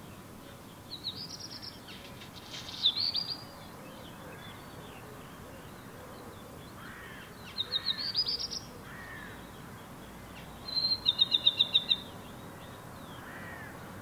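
A songbird of the Old World flycatcher family singing four short, fast phrases of high, quickly repeated notes a few seconds apart. The last phrase is a run of about eight even notes.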